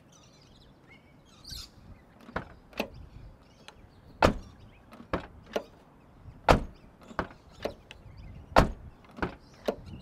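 Rear door of a 2010 Nissan Pathfinder being shut and opened again by its newly replaced outside handle: a series of sharp latch clicks and clunks from about two seconds in, the three loudest about two seconds apart. The door unlatching from the outside is the sign that the new handle works.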